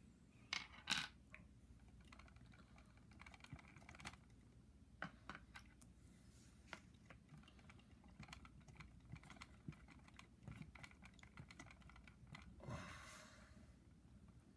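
Faint small clicks and taps of a plastic 1/6 scale action figure being handled and posed, its hands and joints being worked. There are two sharper clicks about a second in, scattered light ticks after them, and a short rustle near the end.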